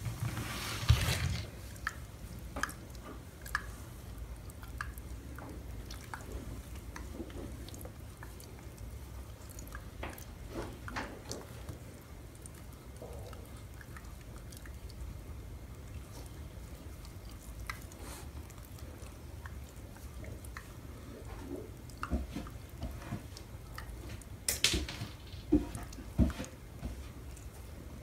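Shiba Inu sucking and mouthing a person's fingers: soft wet smacking and sucking clicks, scattered and irregular, with a louder flurry about a second in and another near the end.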